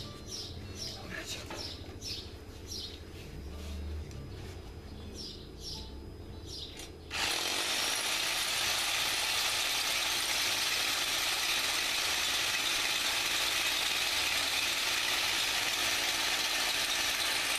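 Birds chirping in short, high, falling notes over a low hum. About seven seconds in, a loud, steady rushing hiss cuts in suddenly and drowns them out.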